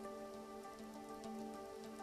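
Quiet background music of held, sustained notes over a light patter of faint ticks like rain.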